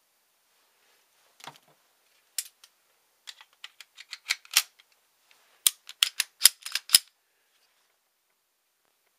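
Glock pistol being put back together by hand: a run of sharp metal-and-polymer clicks and snaps, sparse at first and then quicker and loudest about six to seven seconds in.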